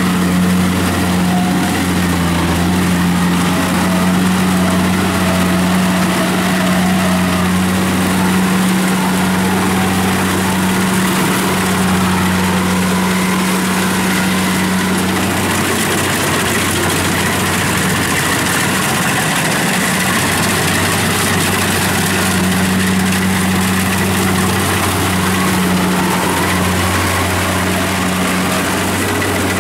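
Kubota DC70 combine harvester's diesel engine running steadily under load while it cuts and threshes rice, a constant low drone over the noise of the working machinery. The drone eases a little about halfway through and then comes back.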